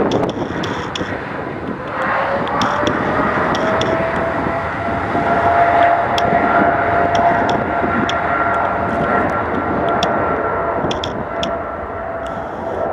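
Airliner's engines running with a loud rush, and a whine that climbs in pitch about two seconds in and then holds steady.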